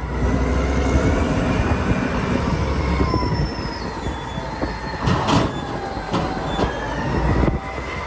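Caterpillar 992C wheel loader's diesel engine running hard as it lifts and dumps a bucket of dirt into a truck trailer, with high whining and squealing tones from the machine. A few knocks and a clatter come about five seconds in.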